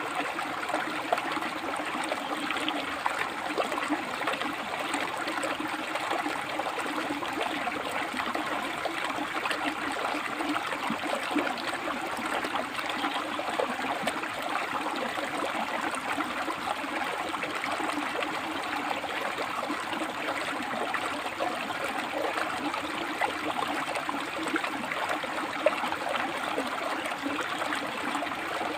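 A rocky river flowing steadily, water rushing and splashing between the stones with a constant hiss.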